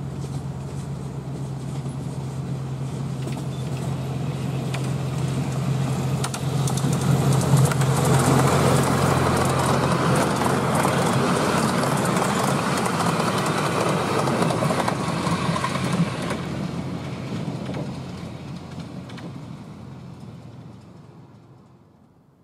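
Miniature-railway diesel-hydraulic locomotive hauling a passenger train: a steady engine hum grows as it approaches, it passes close with wheel and rail noise and a run of clicks, then the sound fades away as it goes.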